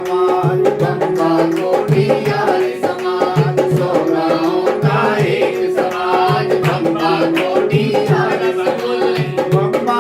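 Instrumental introduction to an Indian devotional bhajan, cutting in suddenly at the start: tabla playing a steady rhythm under a sustained melody.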